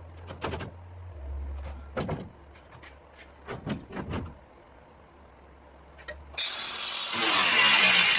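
A few scattered metal knocks and clanks, then about six seconds in a loud, steady motor-driven noise starts up, like a power tool or shop vacuum running.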